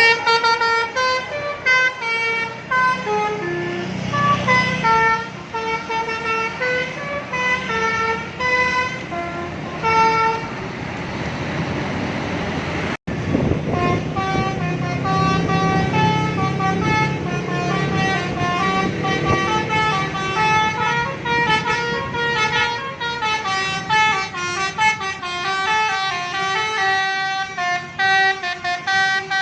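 Bus 'telolet' musical air horn playing a rapid melody of stepped notes over the low hum of a running bus engine, with a momentary break partway through.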